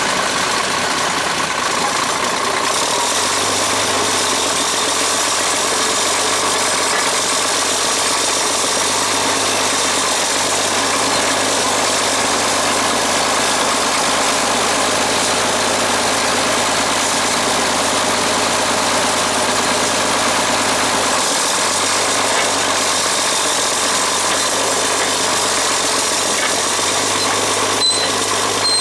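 Caterpillar D6C crawler dozer's diesel engine running steadily as the dozer is driven slowly.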